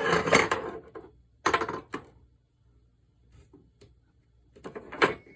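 Metal tools and spray-gun parts being handled on a workbench: a clattering burst, then two sharp clicks a moment apart, and a few more knocks near the end.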